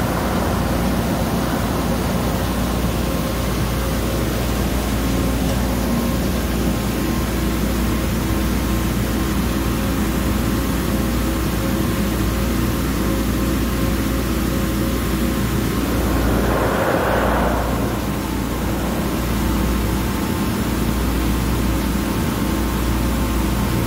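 Höfler HF 2000L CNC gear hobber running with its internal head cutting the teeth of a large ring gear, coolant flowing: a steady machine hum with several held tones. A brief rushing hiss rises and fades about seventeen seconds in.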